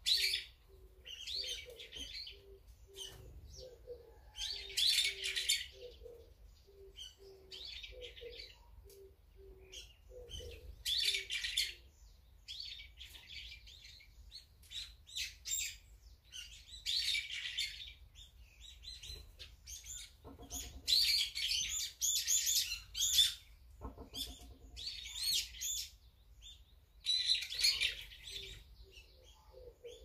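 Songbirds calling at a feeding spot: loud, harsh chirps in bursts of a second or two, one after another. A low note repeats steadily about twice a second underneath for the first third and again near the end.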